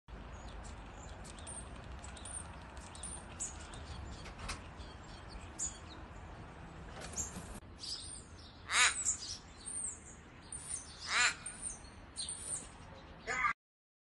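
Australian raven cawing: three loud, drawn-out caws about two seconds apart in the second half, over faint high chirping of small birds throughout.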